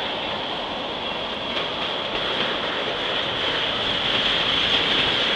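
Freight train of tank cars rolling past: a steady rush of steel wheels on rail with a few faint clicks, growing a little louder in the second half.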